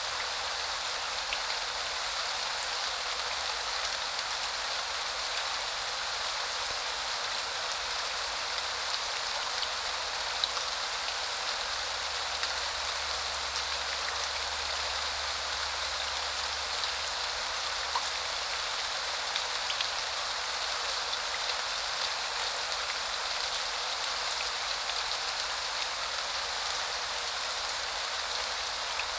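Steady spring rain falling on surfaces, an even hiss with scattered small drop ticks.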